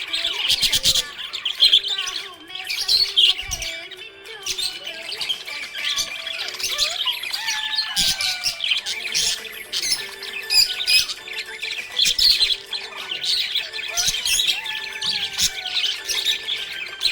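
Budgerigars chirping and chattering without pause, with squawks and short whistled glides overlapping.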